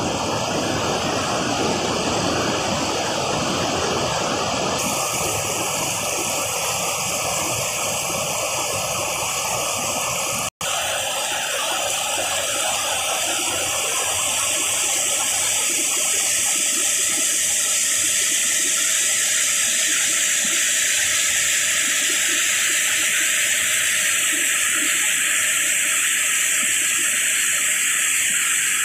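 Fast-flowing water rushing and churning over rocks as it pours out of a tunnel outlet, a steady, even rush that cuts out for an instant about ten seconds in.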